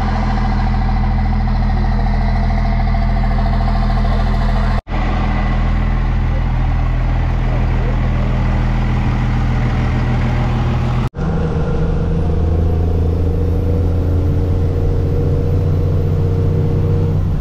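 Engine running steadily in three spliced clips, each cut off sharply. In the last clip the 1999 Dodge Ram 3500's Cummins turbodiesel is heard from inside the cab while driving, with a faint high whine rising in pitch.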